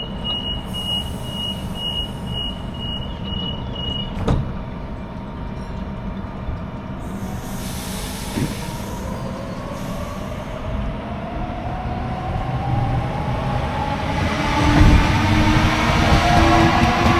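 Sydney electric suburban train accelerating, its motor whine rising steadily in pitch and growing louder over a rumble. Before it, a series of short high beeps for about four seconds, then a sharp knock.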